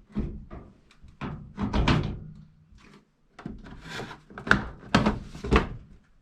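A series of knocks and clunks as washing machine cover panels are pushed and fitted back into place, with the sharpest thunks near the end.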